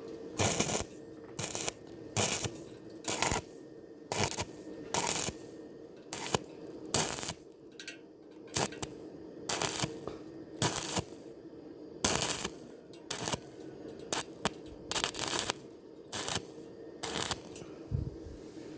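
Stick welding arc on thin square steel tube, struck in short crackling bursts about once a second, with a steady hum underneath.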